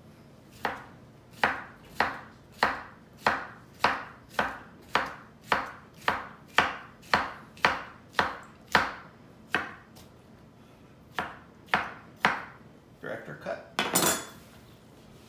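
Kitchen knife slicing peeled cucumber on a wooden end-grain cutting board: a steady run of chops about two a second, then a pause and a few slower cuts. A louder knock comes near the end.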